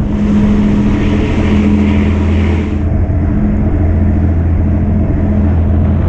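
Fishing boat's engine running steadily underway, a deep even hum. A hiss of rushing water sits over it for about the first three seconds, then cuts off suddenly.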